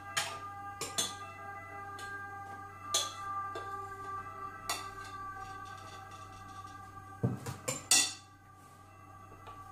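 Soft background music with held tones, over a few sharp clinks and knocks of a spatula and a plastic jug against mixing bowls while beaten egg whites are scooped into cake batter; the loudest knocks come about seven to eight seconds in.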